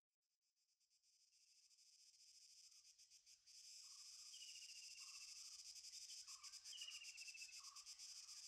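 Faint, fast insect-like chirring like crickets fades in from silence. Soft short blips come about once a second, and three high whistles fall in pitch, forming the quiet ambient opening of a music track.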